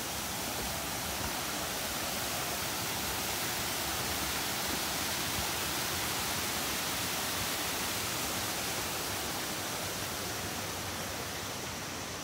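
Steady, unbroken rush of falling water, like a waterfall.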